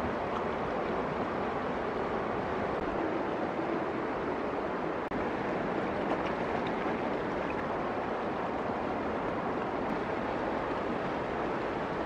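Steady rush of flowing river water, unbroken and even in level.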